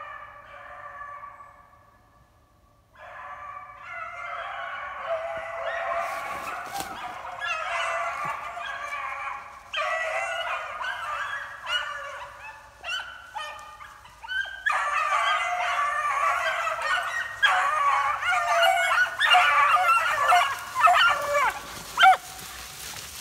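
A pack of beagles baying on a rabbit's track, many voices overlapping. Faint at first, the pack breaks off briefly, then picks up again and grows steadily louder as it closes in, loudest near the end.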